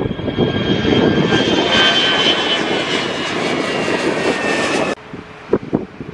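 Airliner's engines at takeoff power: a loud rush with high whining tones that slide slightly lower, buffeted by wind on the microphone. It cuts off abruptly about five seconds in, leaving only gusts of wind on the microphone.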